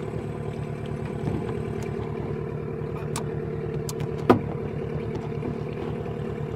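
An engine idling steadily, with an even low pulse, and one sharp knock a little over four seconds in.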